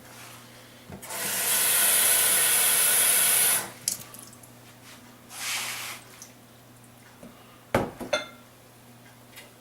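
Kitchen tap running for about two and a half seconds, then a second, shorter run of water, likely adding water to pancake batter. A couple of sharp knocks come near the end.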